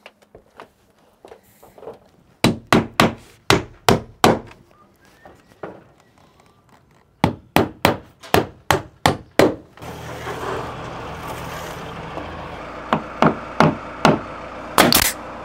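Nailing wood trim and battens into siding: runs of sharp strikes at about three a second, a handful at a time, then a few single strikes near the end, the last the loudest. A steady noise bed comes in about two-thirds of the way through.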